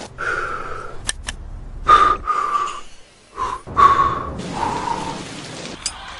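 Several people blowing on spoonfuls of hot soup, a run of short breathy whistles, each at a slightly different pitch, one after another. Two light clicks come about a second in.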